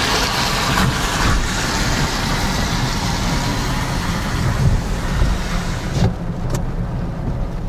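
Car driving: a steady low rumble of engine and tyres under a loud hiss that cuts off suddenly about six seconds in, leaving the low rumble.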